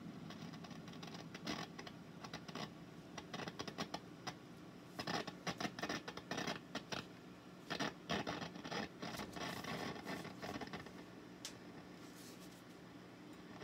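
Irregular scratching, scraping and clicking from hands working at the back of a tube guitar amp and the bias-meter probe leads, in bursts through the first eleven seconds, over a faint steady hum.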